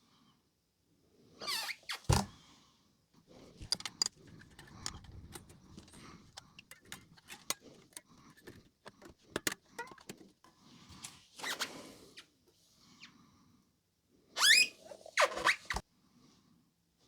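Scattered clicks, knocks and rubbing as an electric guitar is handled and wiped down with a cloth, with a few short squeaky strokes, the loudest about two seconds in and near the end.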